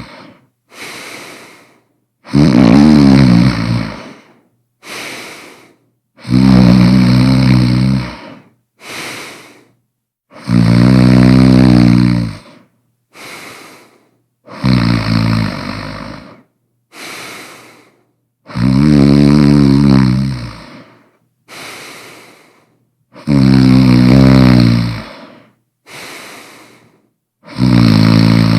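A person snoring very loudly and regularly: a long snore of about a second and a half to two seconds comes about every four seconds, seven in all, each followed by a shorter, quieter breath.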